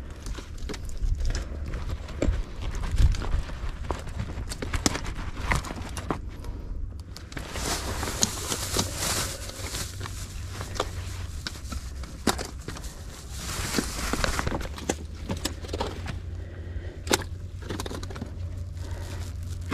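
Scattered short clicks and knocks over a steady low rumble, with a spell of hiss from about seven to fourteen seconds in.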